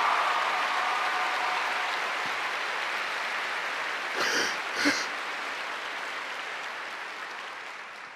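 Audience applauding, the applause slowly dying away, with two short voice cries from the crowd about four and five seconds in.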